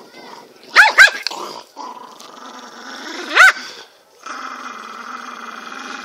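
Small Chihuahua-type dog growling steadily as it snaps at its own hindquarters, breaking into two quick sharp barks about a second in and one more around the middle.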